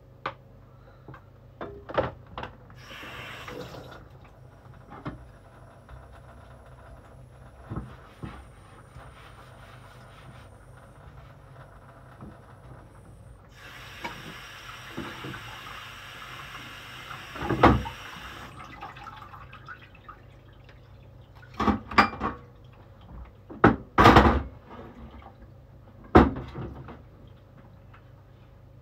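Kitchen work sounds: a tap runs briefly about three seconds in and again for about four seconds from fourteen seconds in, among scattered knocks and clatters, the loudest in the second half, over a steady low hum.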